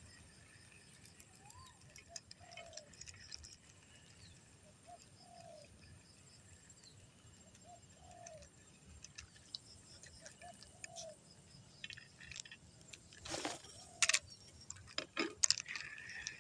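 A dove cooing: a short low call repeated four times, about every two and a half to three seconds, then falling silent. Near the end, a few loud sharp knocks and rattles.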